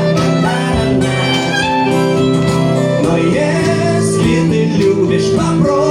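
A live band playing a song between two sung lines of the chorus, with instruments holding notes and some singing voice.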